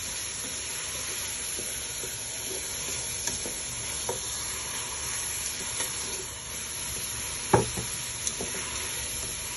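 Julienned carrots and sliced shallots sizzling in oil in a frying pan as a spatula stirs them, with small scraping clicks throughout. A sharp knock about seven and a half seconds in is the loudest sound.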